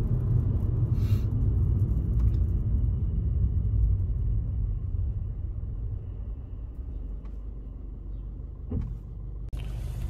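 Low rumble of road and engine noise heard from inside a moving car. It eases off about halfway through as the car slows, with a short rustle about a second in.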